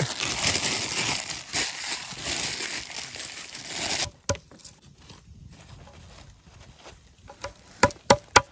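Thin plastic bag crinkling as it is squeezed and handled for about four seconds, then stopping suddenly. A few sharp clicks follow near the end.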